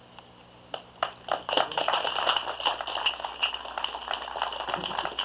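A small crowd clapping, the separate claps still distinct, starting about a second in.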